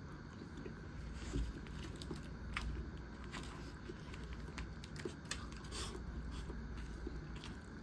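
Light, irregular clicks and crackles of eating a convenience-store fried chicken bento, chopsticks and the plastic container handled between bites, over a steady low hum.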